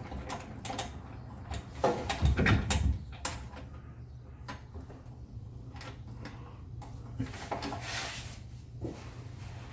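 Irregular metallic clicks and clunks of hardware and tools being handled while fitting nuts and washers to a rear differential mount, with a louder run of knocks about two seconds in.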